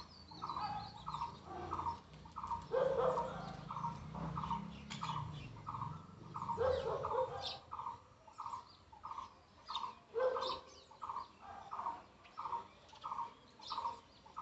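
Birds calling: a steady run of short, evenly spaced notes about twice a second, a deeper, louder call every three to four seconds, and thin high chirps from sparrows.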